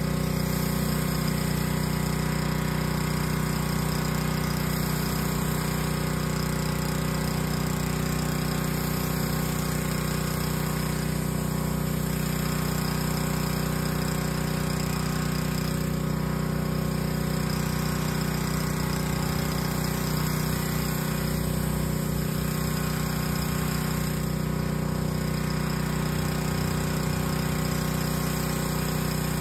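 Pressure washer running steadily, driving a JANZ 20-inch surface cleaner whose spinning spray bar blasts water onto concrete: an unbroken motor hum under the hiss of the spray.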